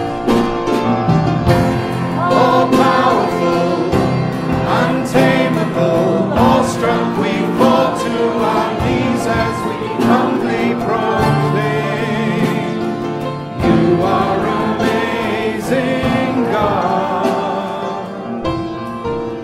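Church congregation singing a worship-song chorus together, with instrumental accompaniment.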